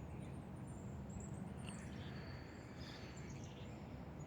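Faint wild birds chirping: scattered short, high calls over a steady low background hum.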